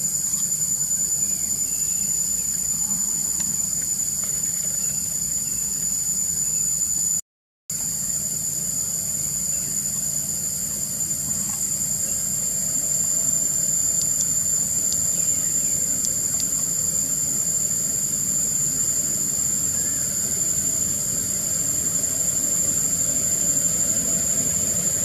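A steady, high-pitched insect drone over a low, steady rumble. The sound cuts out completely for under half a second about seven seconds in.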